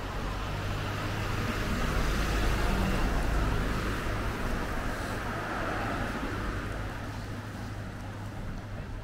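Road traffic: a vehicle passing, its noise swelling over the first few seconds and fading in the second half, over a steady low rumble.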